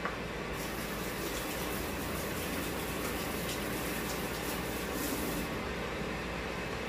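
Water running from a tap as hands are washed under it, a steady rushing that stops about five and a half seconds in, leaving a low steady hum.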